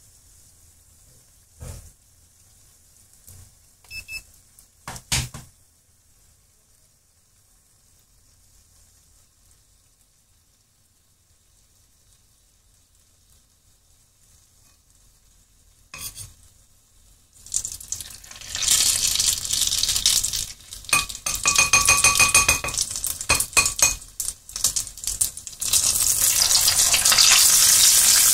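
Hot oil deep-frying a batter-coated cookie in a stainless steel pot, the oil at about 190 °C. Faint for the first part apart from a few clicks and knocks, then loud steady sizzling and crackling from a little past halfway, with a few metallic clinks against the pot in the middle of the loud stretch.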